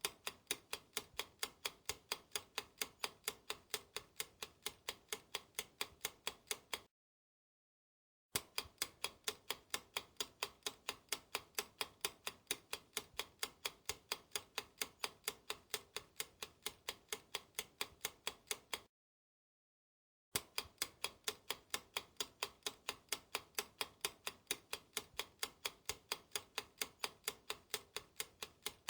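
Clock ticking sound effect used as a quiz countdown timer, an even tick about twice a second. It stops dead twice for about a second and a half, then starts again.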